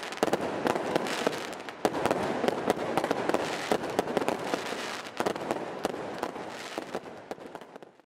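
Aerial fireworks going off: a dense run of sharp bangs and crackles, fading out near the end.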